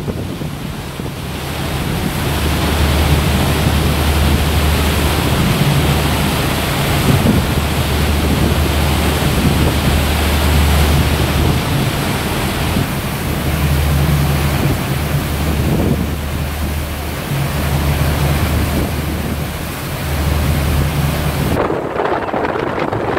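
Wind buffeting the microphone in gusts, over the rushing white water of a large motor yacht's wake.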